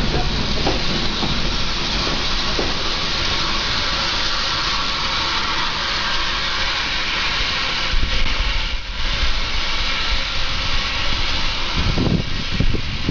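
Steady hissing of steam escaping from beneath the passenger coaches of a steam-hauled vintage train as they roll past, with low rumbling wheel noise. Low buffeting thumps come about two-thirds of the way through and again near the end.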